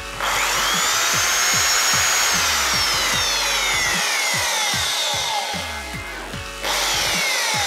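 Electric drill running as it bores a hole through a small piece of cardboard, its motor whine sliding slowly down in pitch. It stops briefly about six and a half seconds in and starts again.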